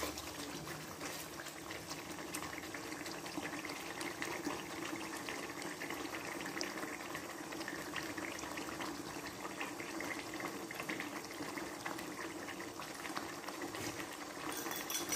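Beef pasanda gravy simmering in a non-stick wok: a steady crackle of small bubbles popping.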